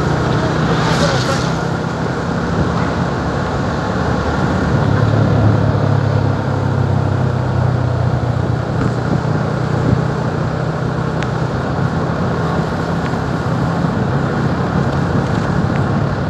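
Motorbike engine running steadily at cruising speed, heard from the rider's seat under a haze of road and wind noise, with a short high hiss about a second in.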